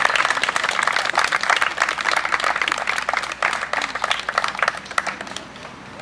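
A crowd of wedding guests applauding. The clapping thins out and dies away about five seconds in.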